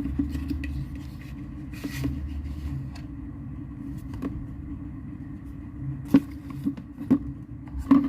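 Packaging of a vape mod box being opened and handled: scrapes, then several sharp taps and knocks in the second half, over a steady low hum.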